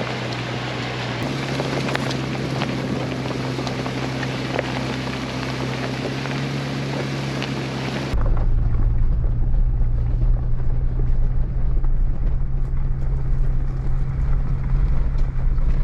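Jeep Wrangler driving along a dirt forest road: a steady engine hum under tyre and road noise with faint crackles. About eight seconds in the sound changes suddenly to a louder, deeper rumble without the hiss.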